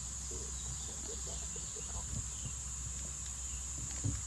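Steady high-pitched insect drone, with small handling noises and a single knock near the end.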